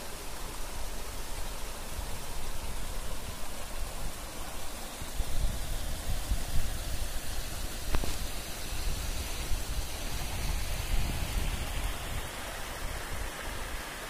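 Small waterfall and rocky stream: water splashing and rushing over boulders in a steady, even hiss. A low rumble comes and goes from about five seconds in.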